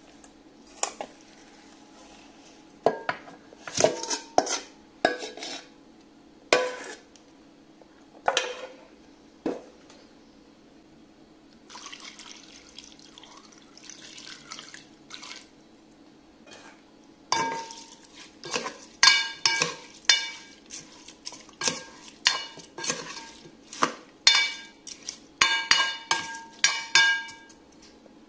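Clinks and knocks of a ceramic spoon and chicken pieces against a stainless mixing bowl and a rice cooker's inner pot. About halfway through, water pours from a glass jug into the pot for a few seconds; after that come many quick, ringing clinks of the spoon against the metal. A steady low hum runs underneath.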